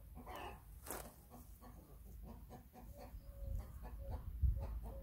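Brahma chickens clucking: a run of short, repeated clucks with a louder call about half a second in. A low rumble rises near the end.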